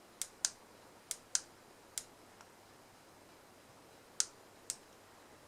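Plus and minus buttons on a CXG E60W soldering iron being pressed to set the temperature: a series of small, sharp plastic clicks. There are five in the first two seconds, then a pause, then two more a little after four seconds.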